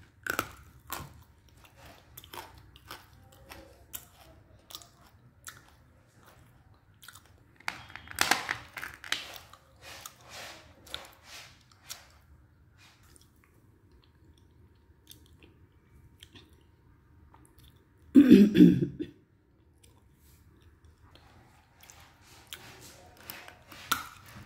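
Chunks of edible clay being bitten and chewed close to the mouth, crisp crunching crackles with a thick run of crunches about eight seconds in. About eighteen seconds in there is one short, louder throat sound like a cough.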